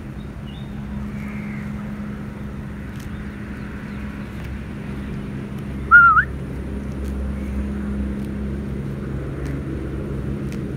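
Steady low hum in the background, with a single short whistled chirp that dips and then rises about six seconds in.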